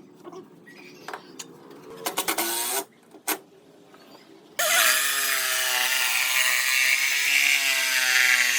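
Electric power tool working wood: a short run about two seconds in, then it spins up again about four and a half seconds in and runs steadily for about four seconds.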